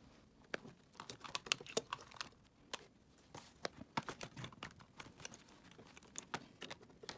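Prop banknotes and paper envelopes being handled: scattered soft clicks and crinkles at an irregular pace.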